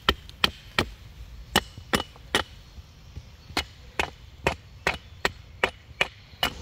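Hultafors hatchet chopping side branches off a dead-wood stick: a quick series of sharp wooden knocks, about two to three a second, with a short pause about halfway through.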